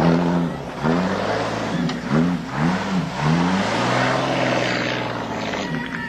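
Engine of a vintage 1930s coupe revving up and dropping back over and over in quick succession as it is driven through a slalom on grass, then holding a steadier pitch before easing off near the end.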